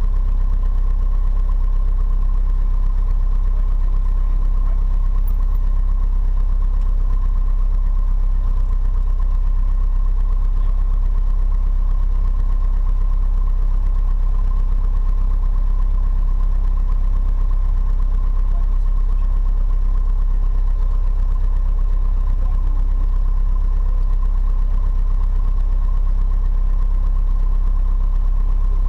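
Piper PA-28-140 Cherokee's four-cylinder Lycoming engine idling steadily, heard inside the cockpit.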